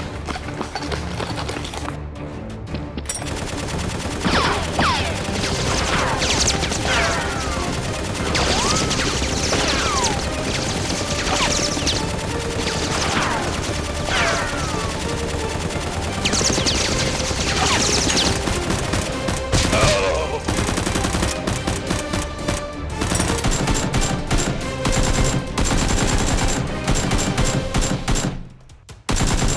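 Rapid, near-continuous automatic gunfire sound effects dubbed over a Nerf blaster battle, with several falling whistle-like tones in the first half. The firing breaks off briefly near the end.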